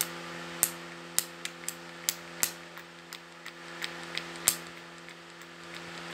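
A dozen or so sharp, irregular clicks from a foundation bottle's pump being pressed and handled, over a steady electrical hum.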